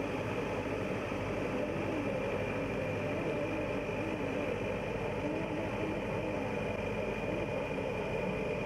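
Nilgiri Mountain Railway X-class locomotive standing at the platform, its machinery running with a steady hum and a thin, steady high whine.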